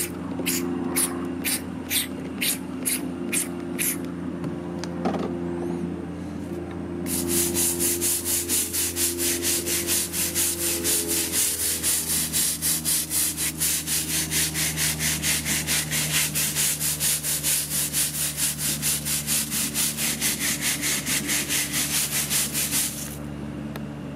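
A trigger spray bottle is pumped repeatedly, about two and a half squirts a second, for the first few seconds. After a pause, a stiff-bristled hand scrub brush scrubs a stained hard surface in rapid strokes, about four a second, for some sixteen seconds, and stops shortly before the end. A steady low hum runs underneath.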